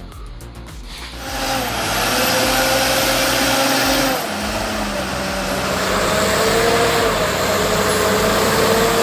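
Heavy machine's engine running hard under load, starting about a second in, with a steady whine whose pitch shifts about four seconds in and then creeps up again.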